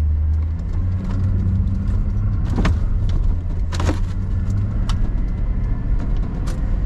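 Steady low rumble of a car's engine and tyres heard from inside the cabin as it pulls onto the road. Scattered small clicks, and two louder knocks about a third and halfway through.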